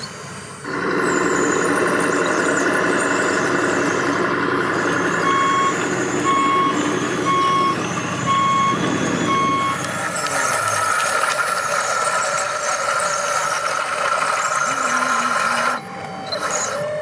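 Sound module of an RC model truck playing loud, tinny diesel-truck sounds through its small speaker. In the middle come five reversing beeps about a second apart. After them a steadier, higher tone runs on and cuts off suddenly near the end.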